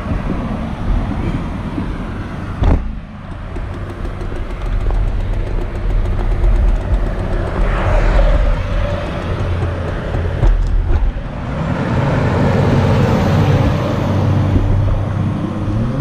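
Road traffic on a multi-lane highway: cars passing with engine and tyre noise, one swelling by about eight seconds in and a louder vehicle approaching over the last few seconds. A single sharp knock about three seconds in.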